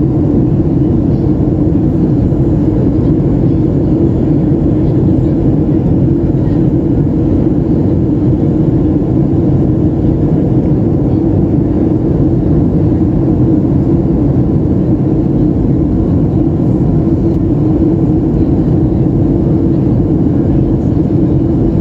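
Steady, deep drone of a Boeing 737's engines and rushing air as heard inside the cabin in flight, even and unchanging.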